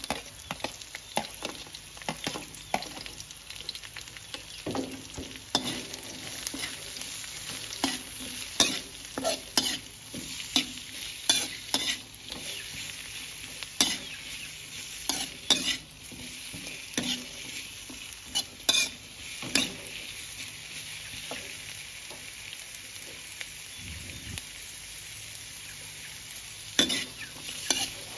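Sliced onions sizzling in a steel wok, with a metal spatula scraping and clacking against the pan in quick, irregular strokes over a steady frying hiss. The stirring pauses for several seconds late on, leaving only the sizzle, then starts again near the end.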